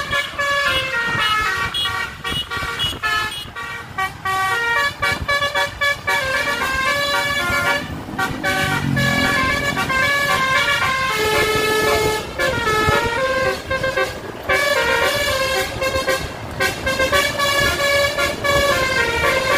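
Tour bus's basuri horn, a multi-tone musical air horn, playing a tune in quick stepped notes with brief breaks between phrases, over engine and road noise.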